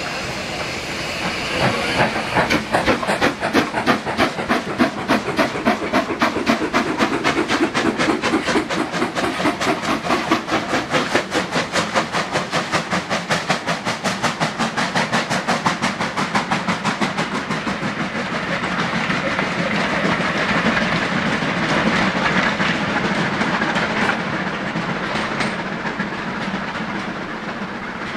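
Two steam locomotives double-heading a passenger train as it pulls away: a fast, even stream of exhaust chuffs with steam hiss and the clatter of the carriages, dying away over the last few seconds.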